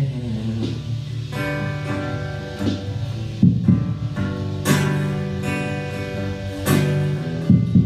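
Acoustic guitar strummed live, with a sharp strummed chord every second or two left ringing between strokes.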